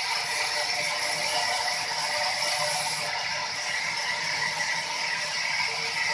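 Sawmill saw machine running, a steady mechanical rattle with several high ringing tones held over it.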